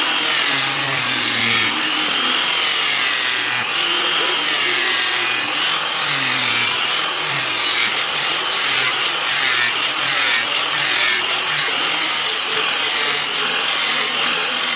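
Electric power tool grinding steel, running continuously with a high whine that rises and falls in pitch every second or so.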